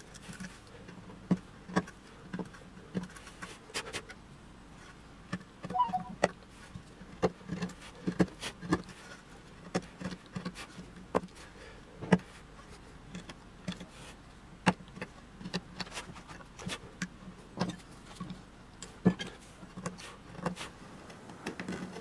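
A hand gouge cutting into walnut, making irregular sharp clicks and snaps as the blade bites and chips break away, about one or two a second.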